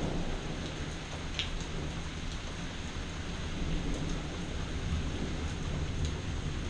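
Steady rain falling during a thunderstorm, with a low rumble of distant thunder underneath and a few single drops ticking close by.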